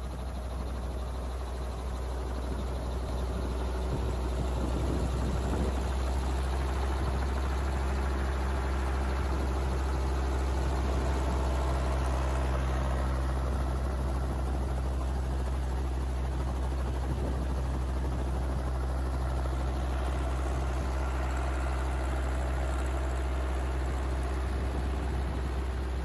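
Robinson R22 Beta II helicopter running on the ground at idle: a steady low drone from its four-cylinder Lycoming piston engine and rotor, slightly louder after about five seconds.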